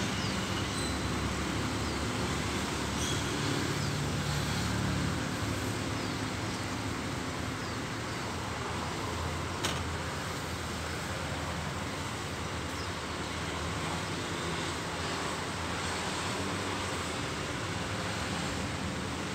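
Steady outdoor background noise, a low rumble under a hiss, of the kind distant traffic makes, with a single sharp click about ten seconds in.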